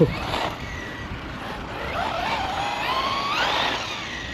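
Electric RC stadium truck (Traxxas Rustler BL-2s on 3S) running: its brushless motor and drivetrain whine rising in pitch as it accelerates, peaking about three and a half seconds in, then falling away, over a noisy rumble. A sharp knock right at the start.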